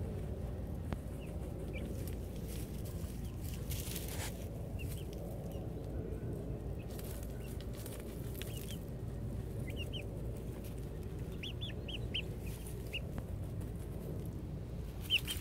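Young chickens peeping softly while dust-bathing, short high chirps scattered throughout and coming more often in the second half. Brief bursts of rustling in dry dirt break in a few times, about four seconds in and again around the middle.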